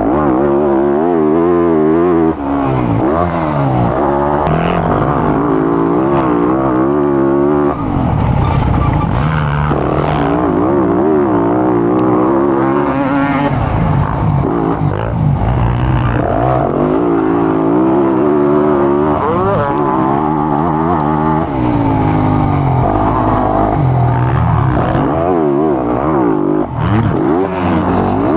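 Motocross dirt bike engine revving hard and easing off again and again, its pitch climbing and dropping through throttle and gear changes, heard close up from on the bike.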